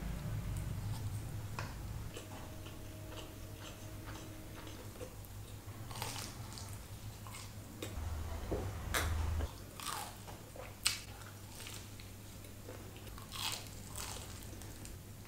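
Close-up eating sounds of crispy KFC fried chicken: bites and chewing with irregular crisp crunches.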